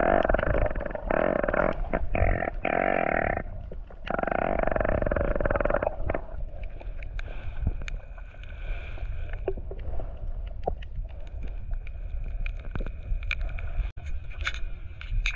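Underwater bubbling in two long bursts, the first about three and a half seconds long and the second about two seconds, each starting and stopping abruptly; afterwards only faint scattered clicking and crackle.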